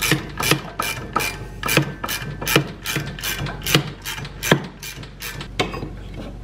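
Ratchet wrench clicking in steady strokes, about two or three clicks a second, as a bolt is threaded into a snowmobile's secondary clutch to open it up for fitting the drive belt. The clicking stops about five and a half seconds in.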